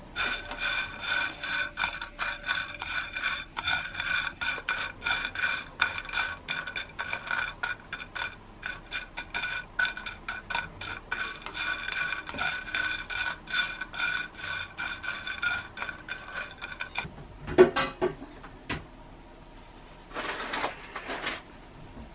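Quick, steady scraping and rattling against a metal pan or bowl, which rings faintly under the strokes. About three-quarters of the way through comes one loud clatter, and near the end a brief rustle.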